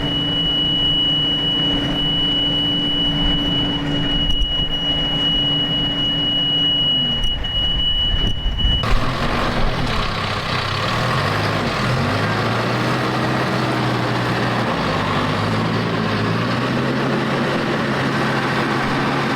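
Heavy equipment engine working a trench in mud. At first it runs steadily with a high, steady whine. About nine seconds in the sound changes abruptly, and the engine revs rise and fall repeatedly under load.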